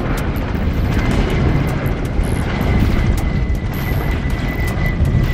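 Helicopter in flight: a dense, steady low rumble of rotor and engine, with a thin steady high whine coming in about a second in.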